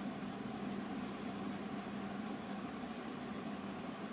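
Steady low hum with an even hiss, unchanging throughout, with no distinct clicks or knocks.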